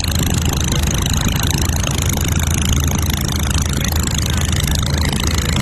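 An engine running steadily: a low, even hum under a constant hiss.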